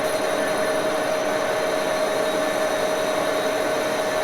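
Axelson engine lathe running at steady speed, its spindle turning a six-jaw chuck without cutting, giving a steady whine over even machine noise.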